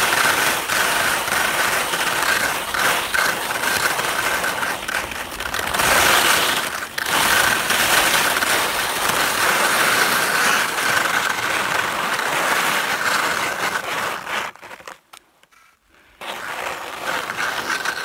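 Skis scraping and hissing over firm, bumpy spring snow, continuous and rough, dropping away briefly near the end before starting again.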